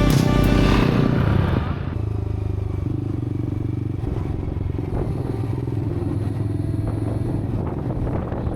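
An engine running steadily with a low, even drone, after background music fades out about a second and a half in.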